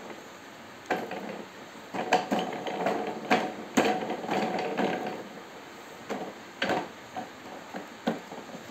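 Plastic toy car being handled, its wheels and parts knocking and clicking. There is a busy run of clicking and rattling between about two and five seconds in, with single knocks before and after.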